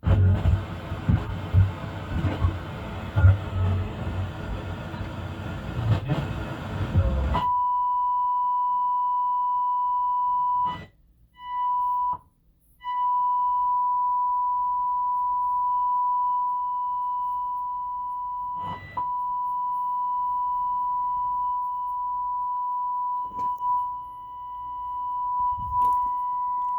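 Music plays for about seven seconds, then cuts to a steady, pure single-pitch test tone. The tone drops out briefly twice and has a few faint clicks in it.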